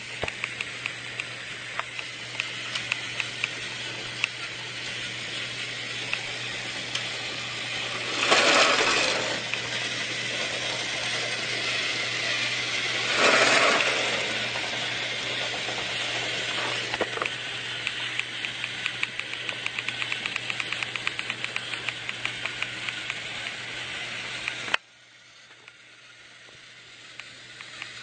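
Motorized toy train running: a steady small-motor whir with rapid, even clicking from its gears and wheels on the track. Two brief louder rushes of noise break in partway through, and the running cuts off abruptly near the end before clicking starts up again.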